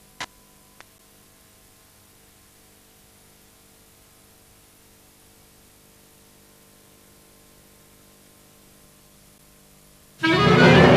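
Faint steady hiss and mains hum of VHS tape playback between programme segments, with two short clicks in the first second. Music starts loudly near the end.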